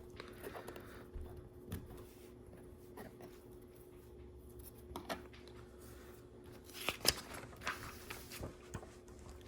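Faint, scattered clicks and taps of plastic LEGO bricks being handled and pressed into place. The sharpest click comes about seven seconds in. A faint steady hum runs underneath.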